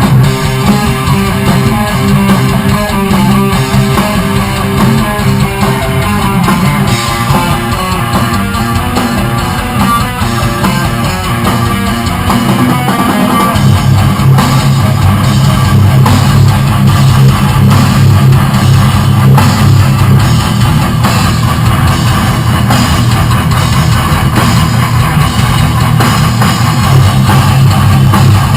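Loud heavy rock music: distorted electric guitar over drums, playing continuously. The low guitar part changes to a new riff about halfway through.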